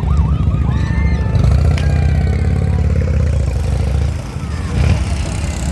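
A parade vehicle's engine running close by, a low steady rumble that dips briefly about four seconds in. Faint warbling tones sound over it in the first second or so.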